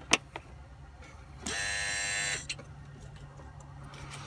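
Engine bay of a 2003 Volvo S60 2.5T idling with a steady low hum, a sharp click near the start, then about a second and a half in a loud, even buzz lasting just under a second that stops abruptly. A nearby hose vibrates with the buzz, and the owners suspect a coolant line.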